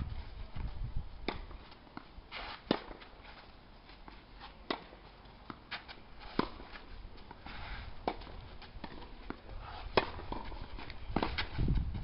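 Tennis rally on a clay court: sharp pops of the ball off the racket strings and its bounces, one every second or two.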